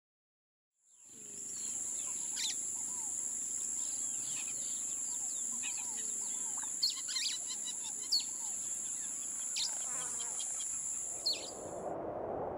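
Bird chirps and calls over a steady, high-pitched drone of insects, fading in about a second in. Near the end the birds and insects stop and a rushing noise takes over.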